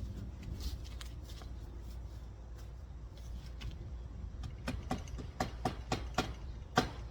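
A run of sharp knocks, about three a second, starting about two-thirds of the way in and growing louder, over a steady low rumble.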